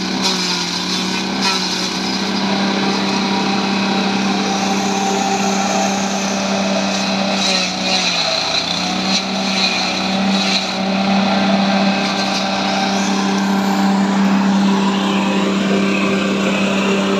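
Multifunction grass chopper running steadily, its motor holding one pitch that sags for about a second around eight seconds in before recovering, over a rushing whir from the cutter.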